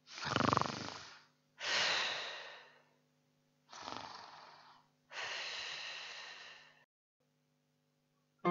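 A person snoring in an exaggerated, staged way: four long, noisy breaths, each fading out, the first with a low rattling snore. An acoustic guitar starts playing at the very end.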